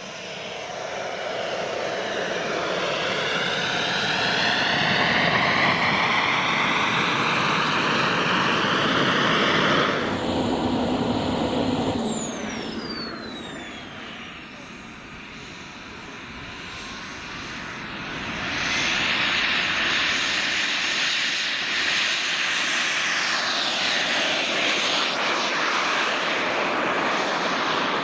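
Model jet turbine (JetMunt VT80) running with a loud rushing noise and a high whine, the whine rising in pitch a few seconds in. The sound breaks off abruptly about ten seconds in, eases down with a falling whine, then grows loud again near nineteen seconds.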